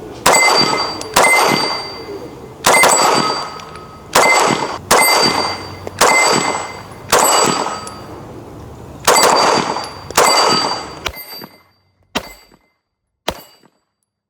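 Fusion XP-Pro 2011-style pistol firing at an 8-inch steel gong, about nine shots spaced roughly a second apart. Each shot is followed by the gong's ringing ding, which fades out; two fainter pings come near the end.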